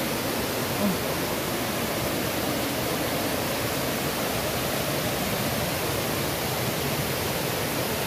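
Steady, even rush of a river and waterfall running high, swollen by rain.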